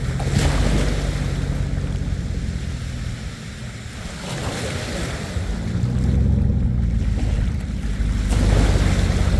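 A GMC Sierra pickup's engine drones at low speed while it drives on the beach. Three swelling rushes of noise, about four seconds apart, come over the drone.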